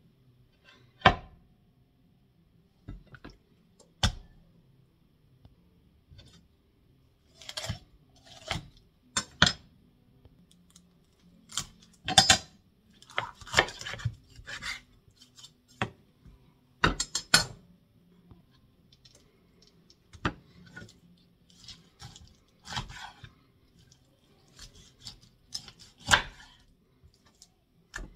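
Chef's knife cutting a whole raw chicken apart on a bamboo cutting board: irregular sharp knocks of the blade on the wood with short scraping and cutting sounds between them. About a second in, the board itself is set down on the counter with a knock.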